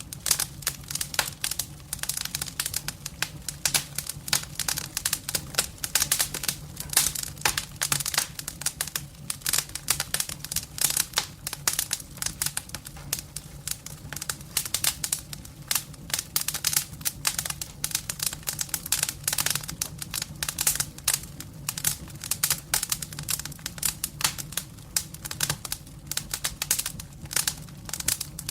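Campfire crackling: a dense, irregular run of sharp pops and snaps from burning wood, over a steady low hum.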